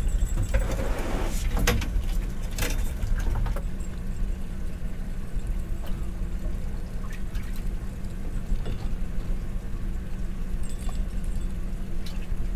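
Steady low rumble of a small boat's idling engine, with sharp clicks and rattles from handling the fishing rig and catch in the first few seconds.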